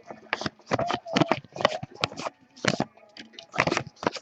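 Trading cards being handled and sorted by hand: an irregular run of quick papery slides and flicks, a few every second.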